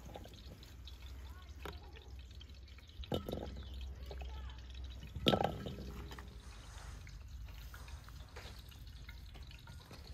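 Roasted chestnuts being shelled by hand: a few sharp cracks and clicks of shells breaking and nuts dropping into an aluminium pan, over a steady low outdoor rumble.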